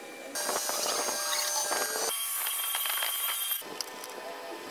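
Small power tool running with a high-pitched whine. It starts abruptly, changes pitch about two seconds in, and stops suddenly about a second before the end.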